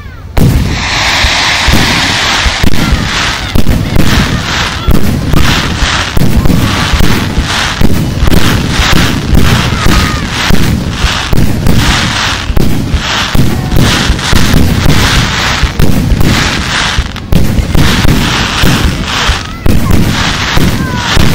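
Aerial fireworks shells bursting in quick succession, loud booms and cracks about two a second with no break.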